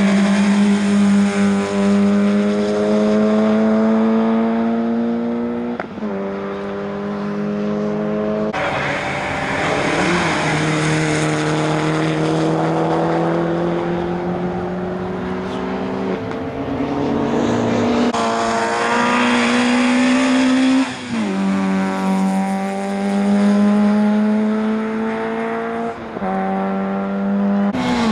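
Small rally cars' engines revving hard around a circuit. The engine note climbs steadily and drops back sharply at each gearshift, every few seconds.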